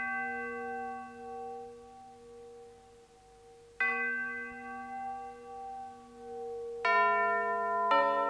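A bell tolling with slow, ringing strokes. A stroke just before the start rings on and fades, and a second stroke comes about four seconds in. Two more come near the end, a second apart and at a different pitch, so their tones overlap.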